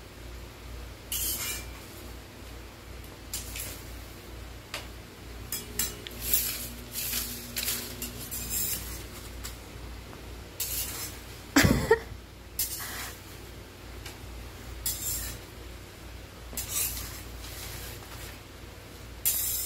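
Metal slotted spatula scraping and tapping against a frying pan and the wooden floor as paper banknotes are scooped into the pan, with the notes rustling. The scrapes come in irregular short strokes, with one louder, sharper sound about halfway through.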